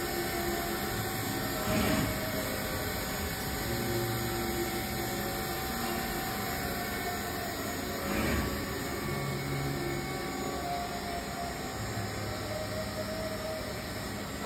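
Dugard Eagle 850 vertical machining center running: a steady mechanical hum with low motor tones that come and go every second or two, and a short knock about two seconds in and again about eight seconds in.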